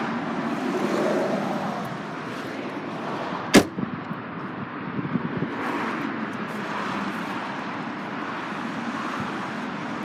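A hatchback tailgate slammed shut once, a single loud bang about three and a half seconds in. It is followed by a few light clicks over steady background noise.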